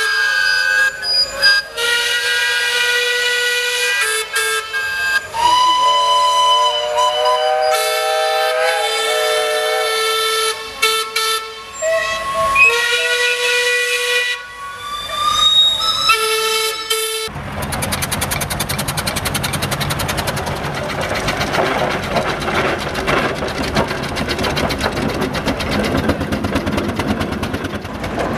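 Steam whistles of a line of miniature traction engines blowing together: several whistles at different pitches overlap, some sliding up or down, and they start and stop. About two-thirds of the way through they cut off abruptly, and a steady engine running sound with a fast, even beat takes over.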